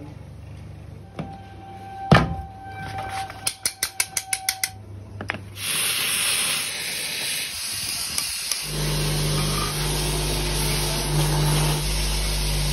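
A sharp knock, then a quick run of about eight knocks, then the steady hiss of a gas torch brazing a cast brass idol. A low steady hum joins it for the last few seconds.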